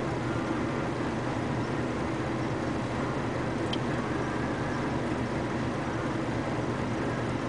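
Steady low mechanical drone at an asphalt plant's truck loading bay: a heavy diesel dump truck idling under the loading silo, mixed with the plant machinery's running noise.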